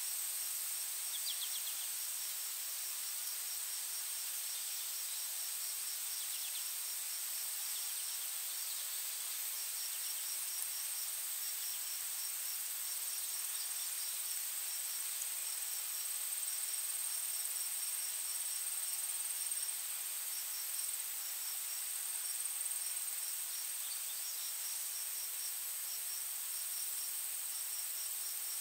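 Insects chirping in quick repeated trains over a steady high hiss, with a faint bird chirp now and then.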